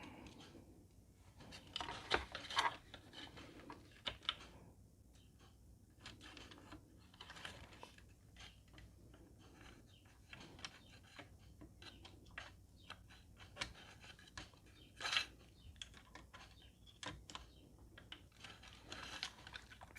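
Small parts of a 2007 Honda CR-V power-folding side mirror's gear mechanism clicking and scraping as they are handled and fitted back together, with scattered light taps and a few louder clicks.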